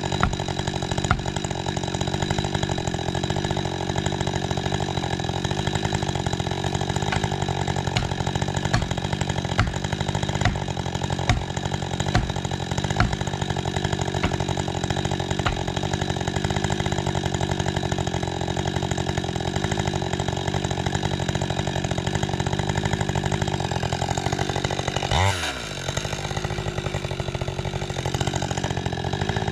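Husqvarna 550 XP Mark II two-stroke chainsaw running steadily, cutting into spruce, with many small ticks over the engine note. Near the end there is a brief sharp sound and a quick drop in pitch, after which the saw carries on.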